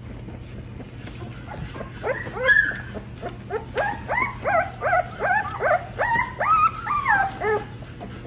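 American Bully puppy whimpering: a run of short, high cries, each rising then falling, about two or three a second, starting about two seconds in.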